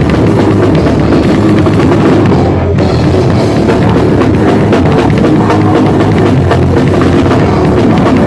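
Grindcore band playing full volume in rehearsal: a drum kit with pounding bass drum under a dense wall of amplified instruments, with a momentary break about two and a half seconds in.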